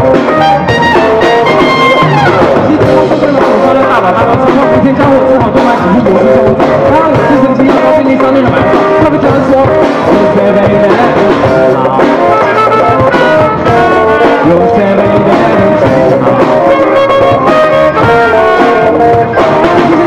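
Live rock band playing loud and steadily: electric guitars, electric bass and drum kit, with a lead singer on a microphone.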